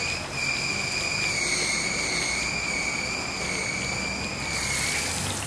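Gas wok burner running with a steady hiss and a high, slightly wavering whistle; the whistle stops near the end while the hiss goes on.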